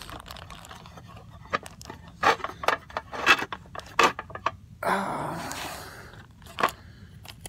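Hands handling a pipe-cleaning kit and its box close to the microphone: several sharp clicks and knocks, with a scraping rustle about five seconds in.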